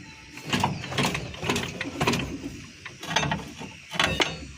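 A series of irregular mechanical clicks and knocks, about half a dozen spread over a few seconds.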